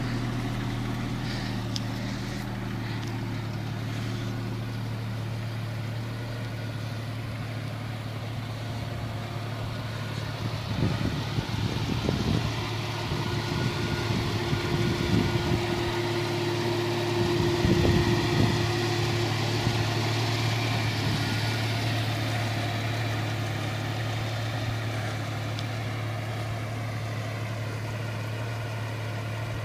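Jeep Cherokee XJ engine running steadily, with louder, rougher stretches about a third of the way in and again a little past the middle.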